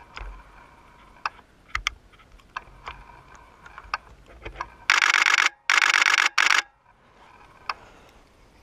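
Three loud bursts of a camera shutter firing in rapid continuous mode, starting about five seconds in and stopping sharply. Before them there are faint scattered clicks.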